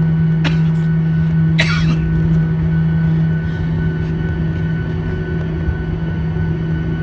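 Jet airliner's turbofan engines at taxi power, heard inside the cabin: a steady drone with a constant low hum and a fainter high whine. Two short coughs cut in about half a second and a second and a half in.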